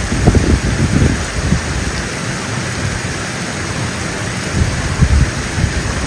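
Water pouring over a small weir, a steady loud rush, with a low rumble that swells in the first second and again about five seconds in.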